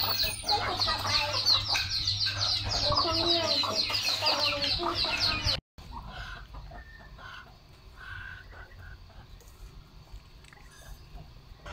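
Chickens clucking, with a rapid run of high chirping over them. About six seconds in the sound cuts out briefly, then drops to much quieter, scattered yard sounds.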